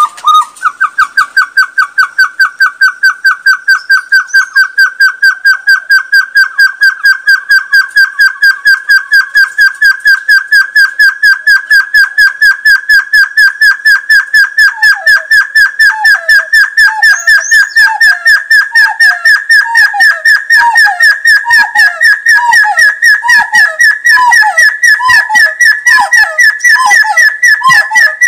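Hill partridge (puyuh gonggong) song: a long, rapid series of whistled notes, about four a second, slowly rising in pitch. About halfway through, a second, lower series of falling notes joins at roughly one a second, like a duet.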